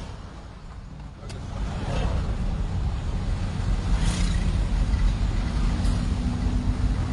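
Car interior noise while driving: engine and road rumble, getting louder about a second and a half in, with a steady hum joining near the end.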